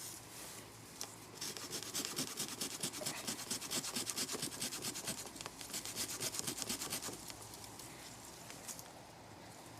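Hand sawing with a jigsaw T-shank blade held in a Leatherman Surge multi-tool: fast, even back-and-forth strokes, several a second, starting about a second and a half in and stopping near three-quarters of the way through.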